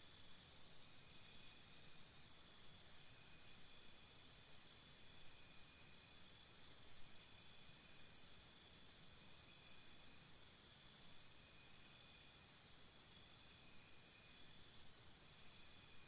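Faint jungle morning ambience: insects chirping in rapid pulsed trains of about six chirps a second that start and stop in spells, over other insects trilling steadily beneath.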